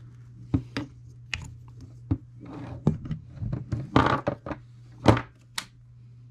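Irregular clicks and knocks of a carbon-fiber drone frame and a small zip tie being handled and tapped against the tabletop as a wire is routed and tied down. The loudest knocks come about 4 and 5 seconds in, over a low steady hum.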